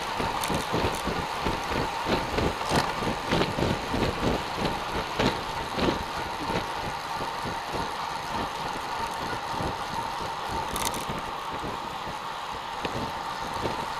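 Wind buffeting the microphone of a camera on a moving road bicycle, with road and tyre noise. A low, rhythmic pulsing of about three beats a second eases off about halfway through, over a steady thin whine.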